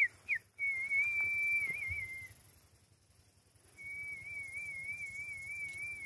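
A person whistling near the microphone: two short falling notes, a held note that wavers at its end, a short pause, then a long note held with a slow warble.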